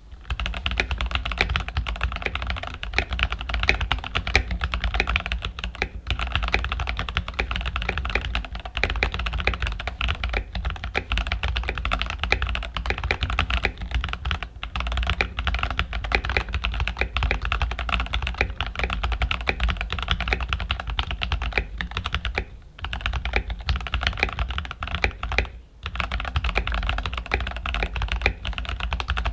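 Keychron K8 Pro mechanical keyboard fitted with Gateron G Pro Brown tactile switches, typed on in a fast, continuous stream of keystrokes. The typing pauses briefly twice, about 23 and 26 seconds in.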